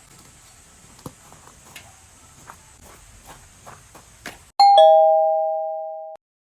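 Faint scattered clicks and knocks, then about four and a half seconds in a loud two-note doorbell-style ding-dong chime, a higher note followed by a lower one, ringing out for about a second and a half before cutting to silence.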